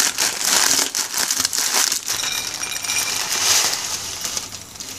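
A block of dry Maggi instant noodles being crushed by hand inside its plastic packet: crinkling plastic with dense crackling of the breaking noodles, dying down near the end.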